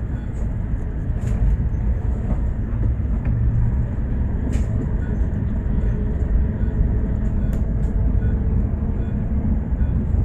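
Bus in motion, heard from inside: a steady low rumble of engine and road noise, with a few light clicks and rattles now and then.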